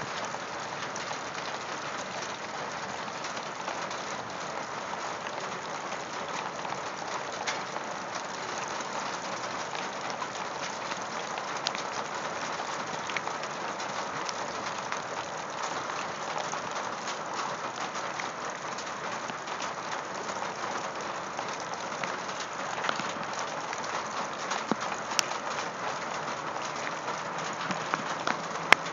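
Torrential rain pouring onto gravel: a steady hiss packed with countless individual drop impacts on the stones. A single sharp click stands out just before the end.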